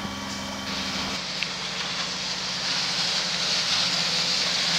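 A sailing yacht's engine hums steadily for about the first second, then gives way to a hissing rush of water that grows louder as jet skis approach, throwing up spray.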